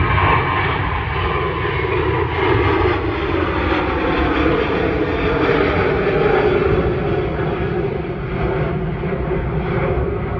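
Twin jet engines of a Boeing 737 at climb power just after takeoff: steady, loud jet noise with faint high tones, easing slightly near the end as the plane climbs away.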